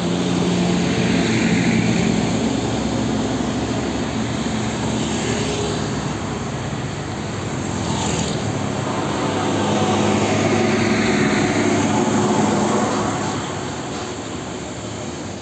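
Diesel engines of heavy trucks, among them a Hino 500-series tractor-trailer, running on the road; the engine drone swells about a second in and again around ten seconds in as trucks pass, then eases off near the end.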